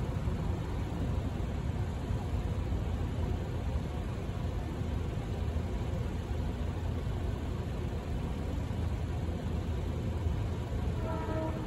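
Low, steady rumble of idling car traffic. About a second before the end, a train's air horn begins to sound as a chord of steady tones.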